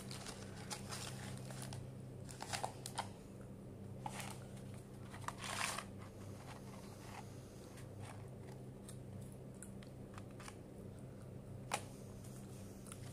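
Red cardboard McDonald's fries carton being handled and opened up: scattered crinkles and scrapes, the loudest a few seconds in and about five and a half seconds in, over a steady low hum.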